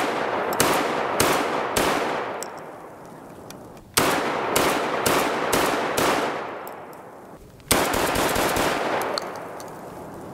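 Remington Model 11 recoil-operated 12-gauge semi-automatic shotgun with a short barrel, fired in three quick strings of four or five shots each, about two shots a second. A rolling echo fades after each string.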